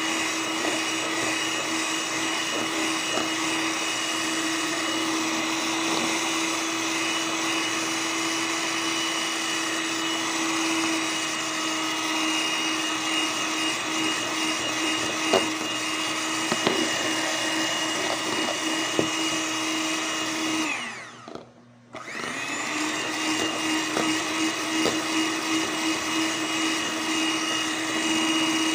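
Electric hand mixer running steadily, its beaters whisking still-liquid egg whites for meringue in a plastic bowl, with a few sharp ticks. About twenty seconds in the motor winds down and stops, then starts up again a second or so later.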